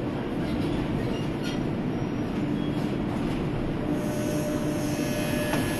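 Electric suspended monorail car of the Düsseldorf Airport SkyTrain running along its elevated track, heard from inside the cabin: a steady rumble and hum, with a hiss that grows louder about four seconds in.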